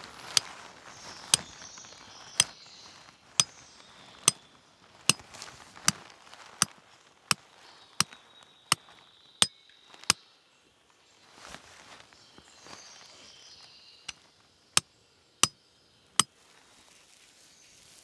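A series of sharp, hard strikes, about one a second at first and then roughly one every three-quarters of a second, breaking into a few scattered strikes in the last third.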